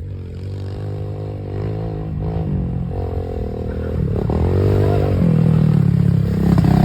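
Kawasaki KLX140 dirt bike with a big bore kit and a BBR D3 exhaust, its single-cylinder four-stroke engine revving up and down as it is ridden. It grows louder toward the end.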